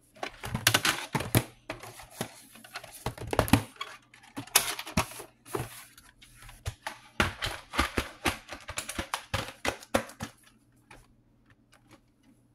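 Plastic VHS cassettes and clamshell cases being handled and set down: a run of sharp clicks and clatters that dies away near the end.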